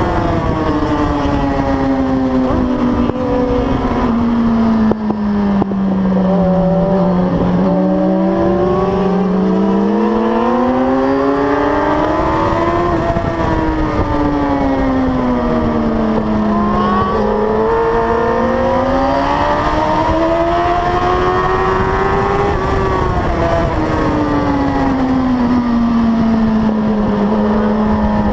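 Onboard sound of a Suzuki 1000cc superbike at racing pace. The engine note climbs under acceleration and sinks under braking into corners, rising twice and falling three times, over steady wind and road noise.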